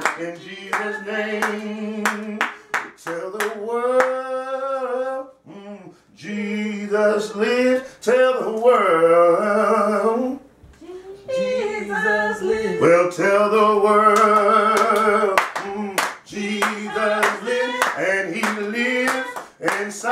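A man singing a gospel song in long, drawn-out sliding notes, with steady hand claps keeping the beat. The singing breaks off briefly twice.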